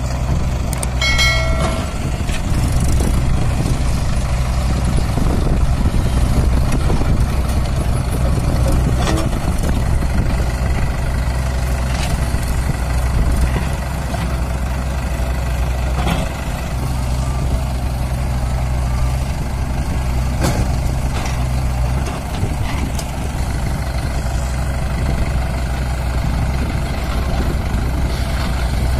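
Diesel engines running steadily: a Mahindra 585 DI tractor's four-cylinder diesel idling close by while a JCB backhoe loader works, with occasional knocks as soil is dumped into the trolley.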